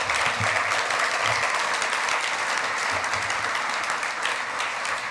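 Audience applauding, a steady crowd of many hands clapping that fades slightly near the end.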